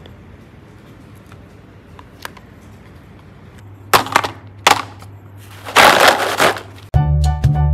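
Hard plastic popsicle-shaped containers clattering against each other as a hand picks through a pile of them: light clicks at first, then sharp knocks about four seconds in and a longer rattle a couple of seconds later. Music with a steady beat starts shortly before the end.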